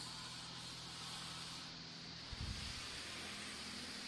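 Water jets of a touch-free automatic car wash spraying over the car, heard from inside the cabin as a steady hiss, with a steady low hum of the wash machinery underneath. There is a brief low rumble a little past halfway.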